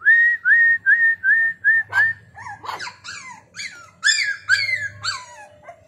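A puppy whining: a quick run of about six short, high whimpers at one pitch, then a string of yelps that each slide down in pitch.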